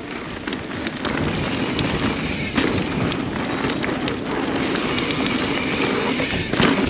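Mountain bike rolling down a dirt trail: steady tyre noise full of crackles, clicks and rattles, growing louder in the first second as the bike picks up speed.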